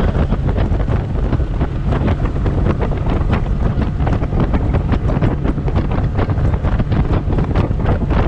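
Wind buffeting the microphone over the steady rumble of a small fishing boat under way, with water splashing and slapping against the hull many times a second.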